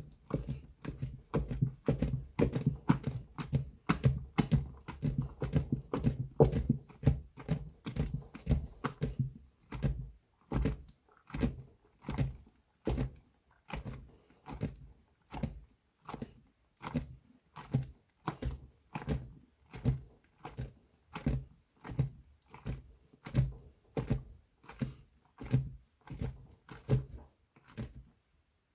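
Soaked glycerin soap plates being washed and squeezed by hand: soft wet thuds, densely packed for the first third, then settling into steady strokes about two a second.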